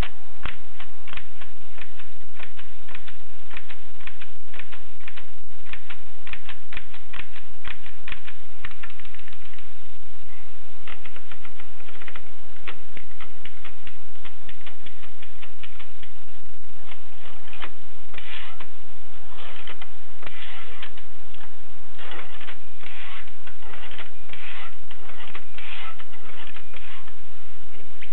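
Groma Gromina manual typewriter being typed on: a fast, steady run of key strikes clacking against the platen. In the second half the strokes come in louder, tighter clusters.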